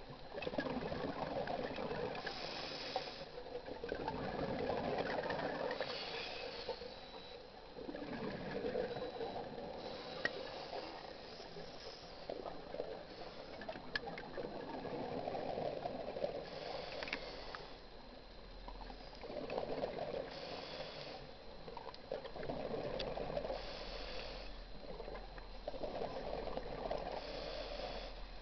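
Scuba diver breathing through a regulator: a short hiss on each inhalation every three to four seconds, alternating with a longer rush of exhaled bubbles.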